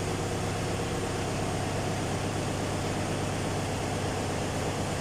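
A steady machine hum with an even hiss over it, holding at one level without change.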